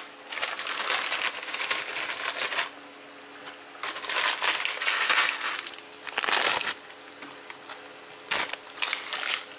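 Plastic instant-noodle packets crinkling and tearing as they are opened, in several crackly bursts, the longest in the first couple of seconds.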